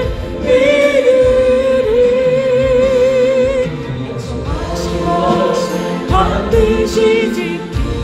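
Korean Christian gospel song: voices singing a held, wavering melody over backing music, with no lyrics made out.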